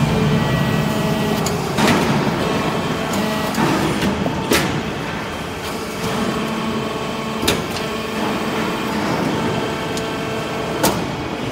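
Hydraulic briquetting press running, its hydraulic power unit giving a steady hum. Several sharp clunks come a few seconds apart as the press cycles and drops finished metal briquettes.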